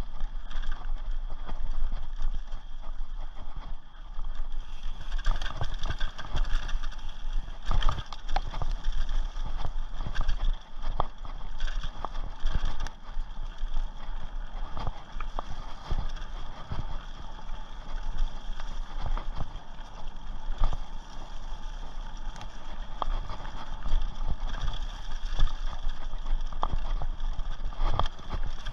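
Rocky Mountain Thunderbolt mountain bike ridden fast over a rough dirt trail: a continuous rattle of sharp knocks and clicks as the tyres, frame and chain jolt over roots and stones.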